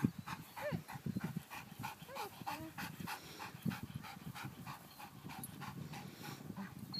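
Dog panting steadily, about four quick breaths a second.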